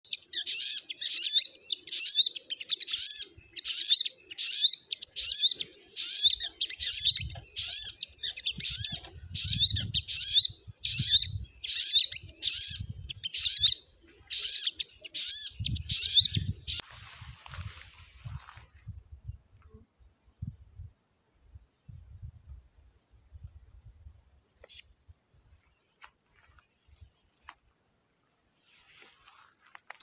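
Sunbird calling: a loud, sharp call note repeated about every 0.8 s, some twenty times, that stops about 17 s in. A short rustling noise follows, then it is quiet but for faint low sounds.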